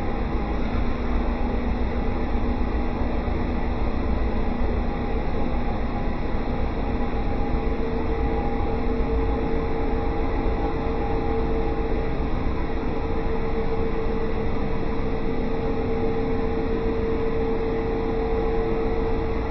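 Swimming-pool plant machinery running: a steady mechanical hum with a constant mid-pitched tone over a low rumble.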